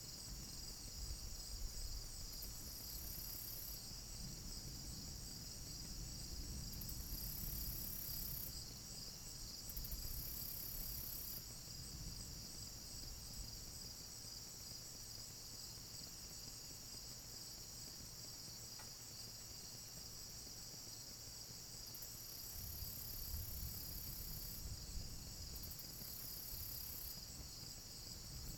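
A night insect chorus, a steady pulsing chirr, with louder, higher buzzing calls coming and going every few seconds. An uneven low rumble runs underneath.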